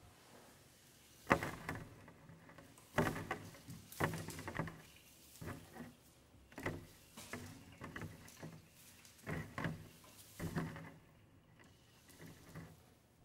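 Leaf-and-ribbon sound objects brushed and struck in irregular clusters of rustles and light taps, about a dozen, with quiet gaps between them.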